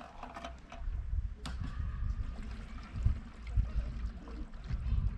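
Kerosene running into a portable kerosene heater's fuel tank through a hand siphon pump, under a low, uneven rumble.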